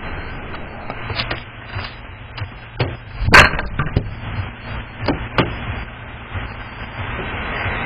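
A handful of sharp knocks and clicks over a steady low hum, with one much louder knock about three and a half seconds in, heard through a doorbell camera's narrow-band microphone.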